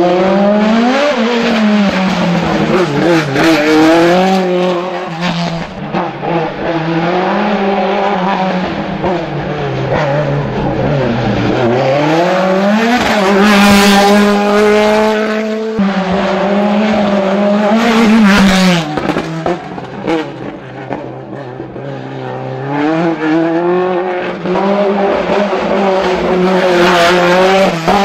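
Open-cockpit sports-prototype race car's engine revving hard, its pitch climbing and dropping again and again as the car accelerates out of the bends and lifts or shifts between them.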